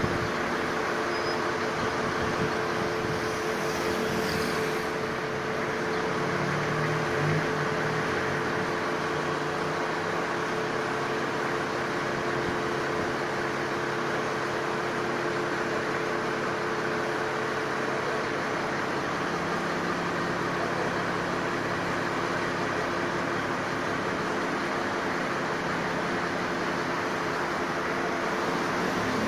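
Mobile crane's engine running steadily at a constant speed, a continuous hum with a few unchanging tones, over general street noise.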